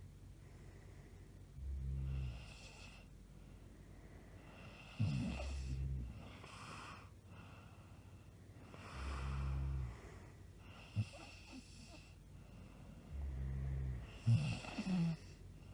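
A woman snoring heavily in her sleep: a deep snore about every four seconds, four in all. Two of them break into a sharp snort, with airy breaths between.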